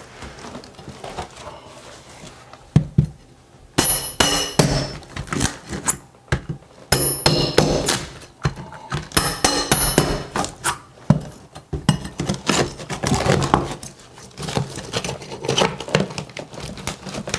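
Claw hammer striking and chipping at ceramic wall tile and the foam shower pan edge: a series of sharp knocks in short clusters, with pieces of broken tile clinking. Near the end, scraping and rattling of debris on the floor.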